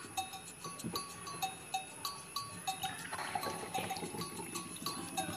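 Background music of short, plinking bell-like notes repeating at an even pace. From about three seconds in, water from a plastic bottle pours into a plastic cup.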